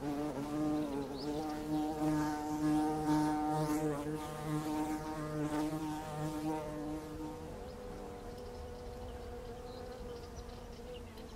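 Flying insects buzzing, a steady wing drone like flies and bees. The deeper, louder buzz drops out about seven and a half seconds in, leaving a quieter, higher hum.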